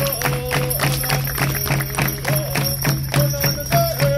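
Song accompanying a hoop dance: a steady drumbeat of about four beats a second with one voice singing over it in long held notes that slide between pitches.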